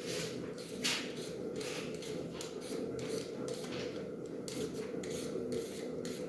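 Knife peeling and cutting potatoes: repeated short scraping strokes, about two a second, over a steady low hum.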